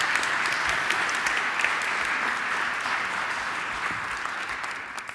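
Audience applauding, a dense patter of many hands clapping that thins and fades away over the last second or two.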